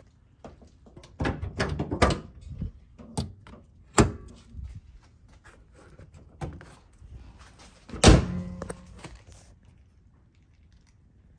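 Several knocks and rattles, then about eight seconds in the 2016 Mazda MX-5's aluminium hood is shut with one loud thunk and a short ringing after it.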